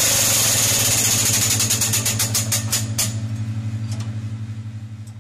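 Turret clock mechanism, an 1885 Gillett and Bland movement, running with a loud whirring and rapid even clicking over a steady low hum. The whirr fades from about three seconds in and winds down near the end.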